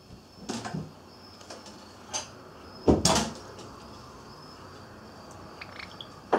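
Knocks and rattles of a Java sparrow pecking and tugging at a komatsuna leaf clipped in its wire cage. The loudest rattle comes about three seconds in, with smaller knocks before it and another right at the end.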